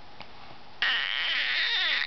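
Baby letting out a loud, high-pitched squealing cry that lasts a little over a second, starting just before the middle.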